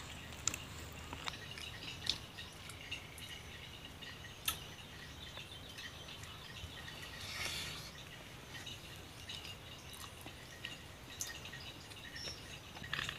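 Eating sounds: a few sharp lip-smacks and wet mouth clicks from chewing soft cooked sweet potato, with faint bird chirps in the background.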